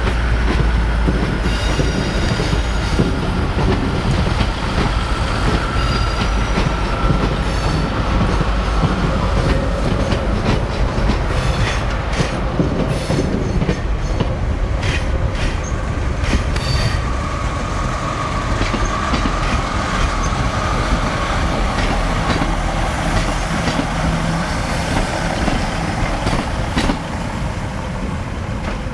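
Class 156 Super Sprinter diesel multiple unit running in slowly over pointwork: a steady low diesel rumble with wheels clicking over rail joints and points. A thin high wheel squeal comes in over the first several seconds and again about two-thirds of the way through.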